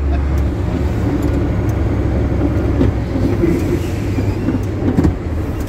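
A truck's diesel engine running while driving in slow traffic, heard from inside the cab as a steady low drone. The deepest part of the drone eases about half a second in.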